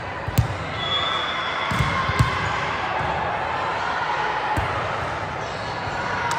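Volleyball being struck during a rally in a gym hall: about four sharp thuds of hand on ball, over a steady murmur of players' and spectators' voices, with a brief high-pitched tone about a second in.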